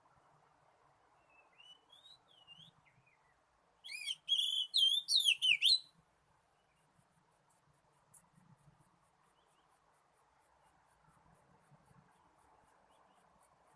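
Oriental magpie-robin decoy singing: a few soft whistled glides, then a loud burst of rapid, varied whistled notes lasting about two seconds, followed by faint high ticks about three a second.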